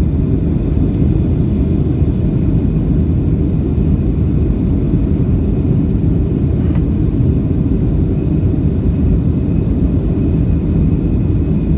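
Boeing 737-800's CFM56 jet engines and airflow: a steady deep rumble with a faint high whine above it.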